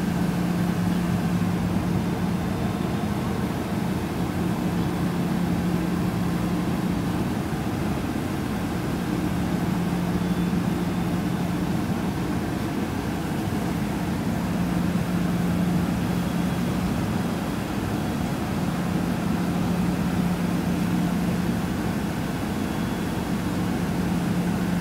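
Stationary Amtrak passenger train idling at the platform: a steady mechanical hum, with a low drone that drops out briefly every few seconds.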